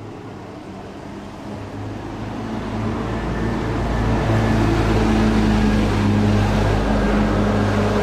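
Sotetsu hybrid city bus driving past at close range. Its engine drone and road noise grow louder over the first few seconds as it comes up, and stay loud as it goes by.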